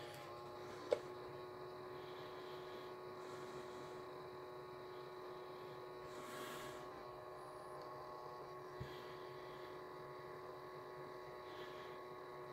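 Faint steady electrical hum made of several steady tones, with one sharp click about a second in.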